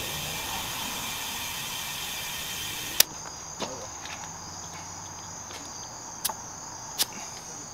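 Compressed air hissing steadily through an air chuck into a car tyre's valve stem as the tyre is inflated from a Craftsman compressor's hose; the hiss cuts off with a click about three seconds in as the chuck comes off. A few small clicks follow at the valve, with crickets chirping.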